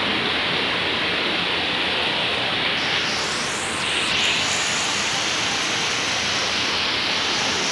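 Heavy rain falling steadily: a dense, even hiss. About three seconds in it briefly turns sharper and brighter.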